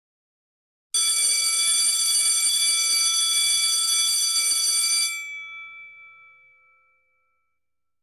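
School bell sound effect ringing steadily for about four seconds as the countdown reaches zero, signalling time's up. It then stops abruptly, and the bell's ring fades away over about two seconds.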